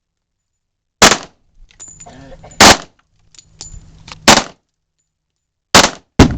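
KRISS .45 ACP submachine gun firing: five sharp reports, the first four about a second and a half apart and the last two close together.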